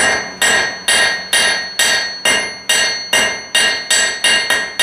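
Hand hammer striking a red-hot nail on a 112-pound NC Cavalry anvil, flattening out the nail's head. The blows come in an even rhythm of about two and a half a second, and each one rings with the anvil's bright tone.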